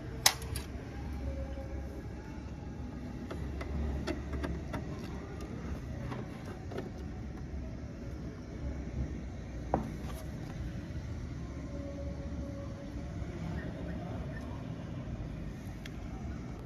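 Steady low background rumble, with a sharp click just after the start and another about ten seconds in.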